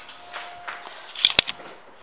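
Quiet handling noise with a few sharp clicks close together about one and a half seconds in.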